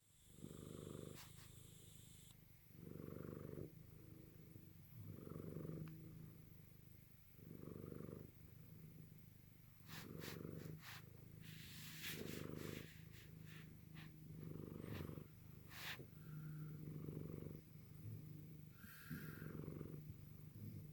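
A sleeping pet snoring in slow, even breaths, about one every two seconds, each a low rough rattle that swells and fades.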